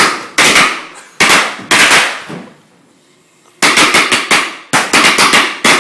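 Black Cat firecrackers going off as a string of loud, sharp bangs, in quick clusters with a pause of about a second midway.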